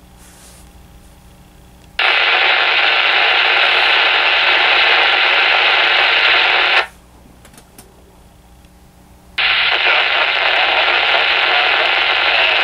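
Baofeng UV-5R5 handheld radio's speaker hissing with loud static, no voice, while its receive light shows an incoming signal. The static switches on abruptly about two seconds in, cuts off sharply about five seconds later, and comes back about two and a half seconds after that.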